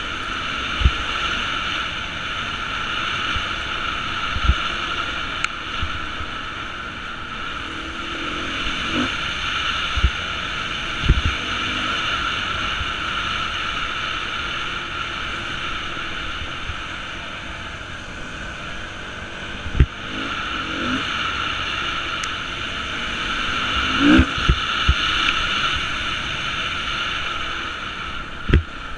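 Beta 350 enduro motorcycle engine running while riding a dirt trail, its revs rising briefly a few times, with about seven short knocks scattered through the ride.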